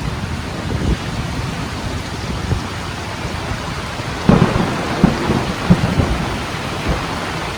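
Heavy rain pouring steadily in a windstorm, with a burst of low rumbling thumps about four to six seconds in.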